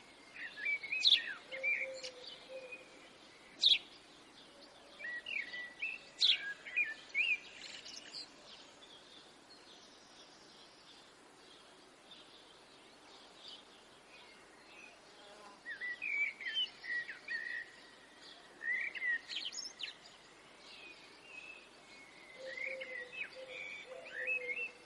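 Small birds chirping and singing in quick, varied bursts, with a lull of several seconds in the middle before the calls pick up again.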